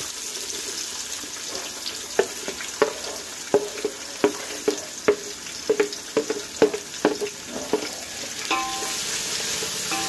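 Sliced shallots sizzling in hot oil in an aluminium pan, just added and being stirred. A wooden spatula knocks sharply against the pan about a dozen times, from about two seconds in until near the end.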